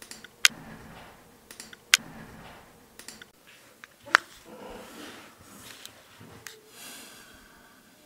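Plastic processor packaging being handled and pried open: a few sharp clicks, the loudest about half a second, two seconds and four seconds in, with soft plastic rustling between them.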